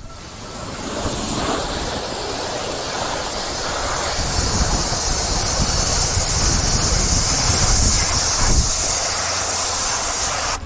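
A 2000 psi, 4 gallon-a-minute pressure washer blasting a jet of water onto cardboard: a steady loud hiss and spatter. It builds up over the first second and cuts off abruptly near the end.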